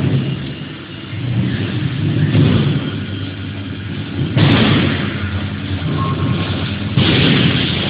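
Close handling noise from fitting a metal baffle plate onto a polishing machine's mounting screws: rough rubbing and knocking of metal parts, with two louder scrapes about four and a half and seven seconds in.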